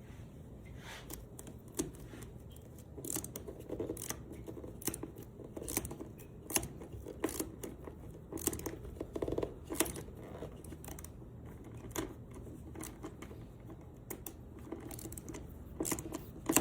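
Mini ratchet clicking in short, irregular runs as a steel threaded insert is turned by hand into a drilled hole in the wooden workbench top, with soft knocks of the tool against the insert and wood.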